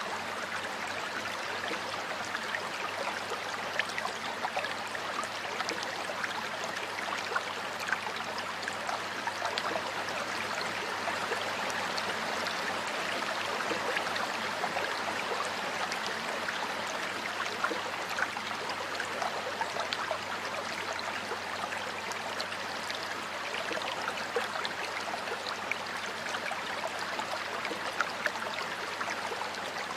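Water flowing steadily in a stream, a constant rush with many small splashes and trickles scattered through it.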